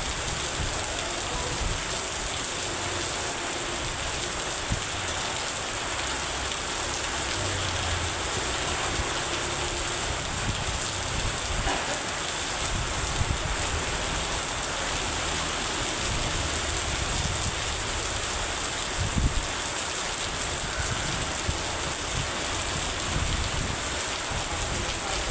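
Heavy rain falling steadily, an even hiss, with a few brief low thumps, the loudest about three quarters of the way through.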